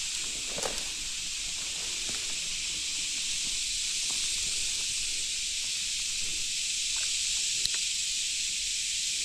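Steady high-pitched drone of insects in the summer woods, with a few faint clicks.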